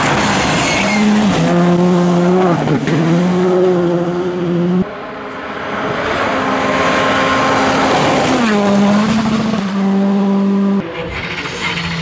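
Škoda Fabia R5 rally cars' turbocharged four-cylinder engines running hard at high revs on a stage. The pitch holds, dips and climbs again with gear changes and lifts. The sound cuts abruptly to another car twice, about five and eleven seconds in.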